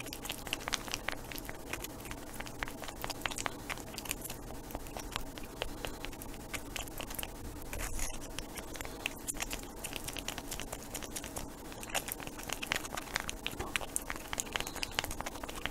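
A stir stick scraping and ticking against the inside of a small mixing cup as 30-minute epoxy resin and hardener are stirred together: a steady run of light clicks and scrapes.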